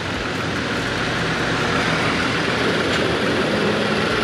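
ARB dual air compressor running steadily under load, inflating four tires at once through a shared manifold.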